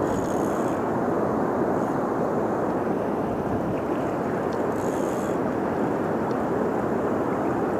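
Steady rushing wind noise buffeting the microphone, with two brief splashes from a hooked channel catfish thrashing at the surface, about half a second in and again about five seconds in.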